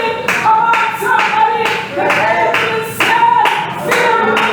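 A congregation singing a gospel song with hand-clapping in a steady beat.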